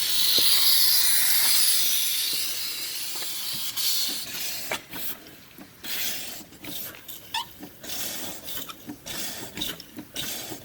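Steam engine hissing steadily as steam blows through it to clear condensed water, then from about four seconds in the hiss breaks into uneven puffs, about two a second, as the engine starts to turn over.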